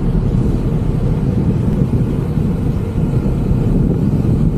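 Wind buffeting the microphone of a moving bicycle rider: a steady, loud, low rumble.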